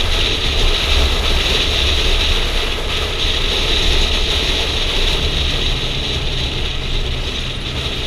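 Kawasaki motorcycle engine running at a steady cruise, heard through a helmet camera with wind rushing over the microphone.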